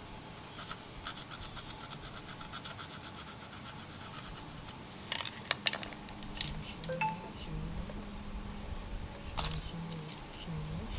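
Quick, repeated scrubbing strokes as carbon deposits are cleaned off a Honda Dash piston, followed by a few sharp clicks and taps about five seconds in and again near the end.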